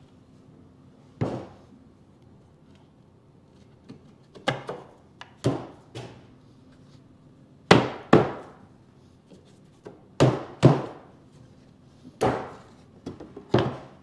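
A hammer knocking on wooden drawer parts to tap the glued dovetail joints of a ready-to-assemble cabinet drawer together: about ten sharp knocks, many in quick pairs, with pauses between.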